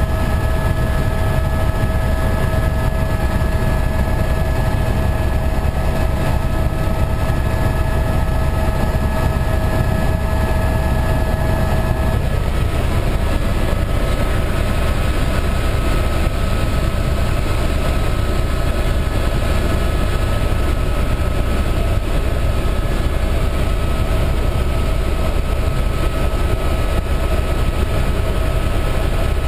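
Helicopter engine and rotor noise heard inside the cabin: a loud, steady low rumble with steady high tones over it, which shift in pitch about twelve seconds in.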